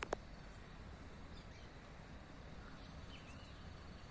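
Faint outdoor ambience with a few faint bird chirps, about one and a half and three seconds in, and a short click right at the start.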